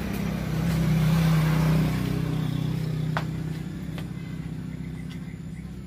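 A motor vehicle's engine passing by, a low steady hum that is loudest about a second in and then fades away.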